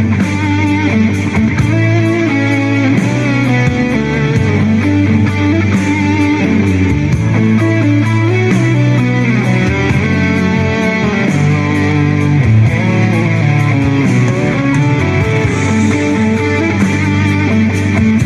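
Background instrumental rock music: an electric guitar plays a melody over a steady bass line.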